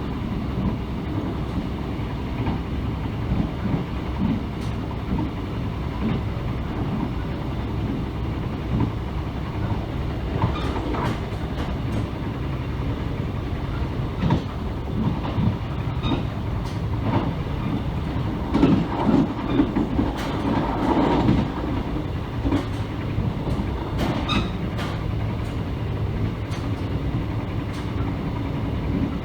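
Mugunghwa-ho passenger train running along the track: a steady rumble with the clicking of wheels over the rail, and bunches of louder clattering knocks about a third of the way in, around two-thirds of the way in, and again shortly after.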